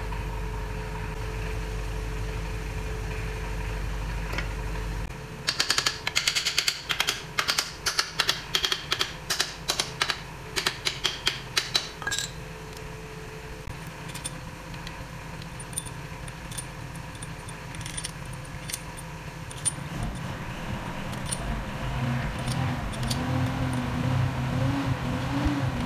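A quick run of sharp metal clinks, two or three a second for about seven seconds, as steel bolts are handled and set into the main bearing cap over the crankshaft of a Suzuki K6A engine block.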